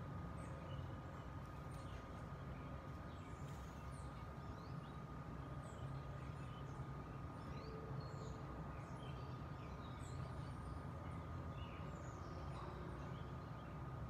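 Small birds chirping in many short, quick calls scattered throughout, over a steady low rumble and a thin, steady high tone.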